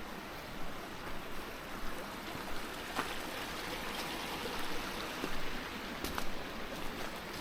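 Waterfall flowing in a steady rush of water, with a few brief splashes standing out.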